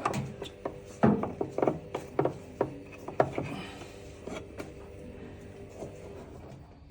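Hard objects being handled: a quick run of knocks and clicks for the first three seconds or so, then quieter rubbing and scraping.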